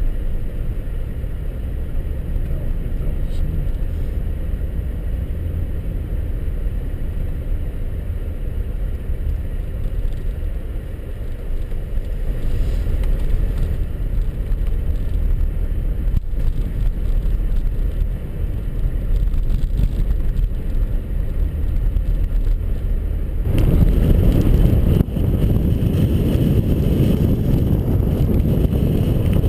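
Steady low rumble of a car driving, turning into a louder, fuller rush about 23 seconds in.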